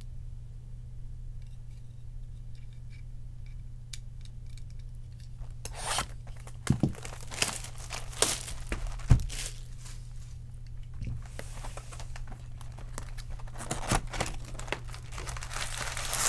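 Plastic wrapping on a box of baseball cards being torn and crinkled by hand: faint handling for the first few seconds, then irregular bursts of tearing and sharp crackling from about six seconds in. A steady low hum runs underneath.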